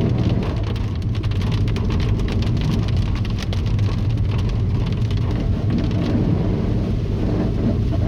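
Heavy rain drumming on a moving car in many fast small taps, over the steady low rumble of the engine and tyres on a wet road.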